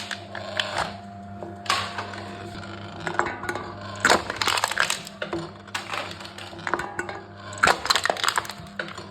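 Aluminium drink cans being crushed by a can-crushing machine: a run of crackling, crinkling crunches at uneven intervals, the loudest about four seconds in and again near the end, over a steady low hum.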